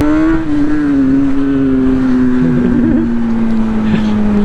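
Motorcycle engine running under way, its pitch slowly falling as the bike eases off and slows.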